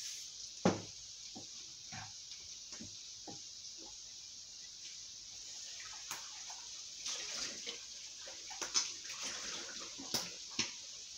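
Vegetables frying in butter in a pan: a steady sizzle with crackles that grow busier in the second half. A sharp knock comes about a second in, followed by a few light clicks.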